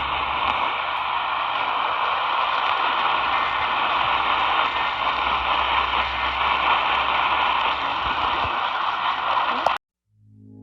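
Weather radio static: a steady hiss with a faint low hum under it, cutting off abruptly near the end.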